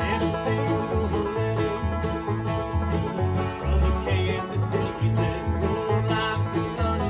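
A band playing an instrumental passage: plucked strings over a steady, alternating bass line.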